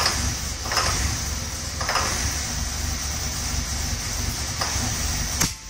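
1984 Corvette's 350 cubic-inch Cross-Fire Injection small-block V8 running on starting fluid sprayed into the throttle body, with no fuel pump hooked up, a sign that the ignition now makes spark. It runs steadily with a few uneven surges, then stops suddenly near the end.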